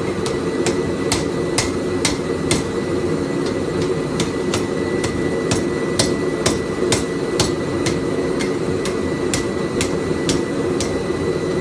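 Hammer blows on hot steel over an anvil, about two to three strikes a second, spreading open the chiseled top of a bar forged into a cross. A steady noise from the running forge lies underneath.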